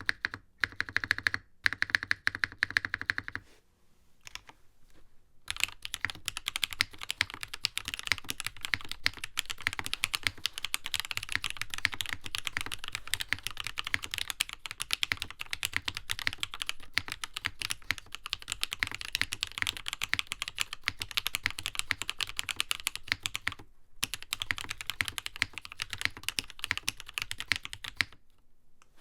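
Mechanical keyboard (NovelKeys Classic TKL) being typed on. A few separate keystrokes are followed by a pause of about two seconds, then steady fast typing runs for over twenty seconds and stops near the end.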